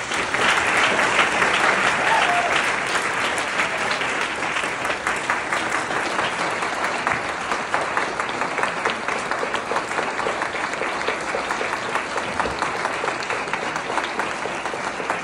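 Audience applauding: dense, sustained clapping from a large crowd that starts suddenly, is loudest over the first couple of seconds, then carries on steadily.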